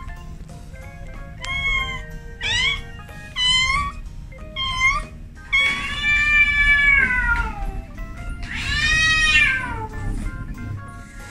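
Domestic cats meowing: four short meows, then two long, drawn-out meows about six and nine seconds in, the first falling in pitch as it ends.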